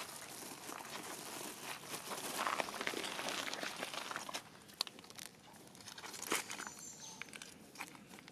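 Irregular rustling and crinkling with many small sharp clicks and crunches, loudest in the middle.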